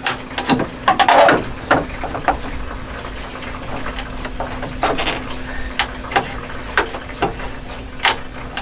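Plastic push-pin retainer clips being pried and pulled out with side cutters and a screwdriver: irregular clicks and snaps of plastic and metal tool, thickest in the first couple of seconds, over a steady faint hum.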